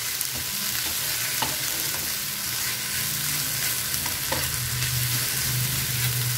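Sliced okra and onion sizzling in oil in a nonstick frying pan on high heat, stirred and tossed with a spatula, with a couple of light spatula clicks against the pan.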